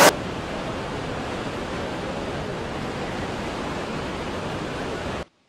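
Steady rushing of Niagara Falls' falling water, an even hiss-like roar with no voices, which cuts off suddenly near the end.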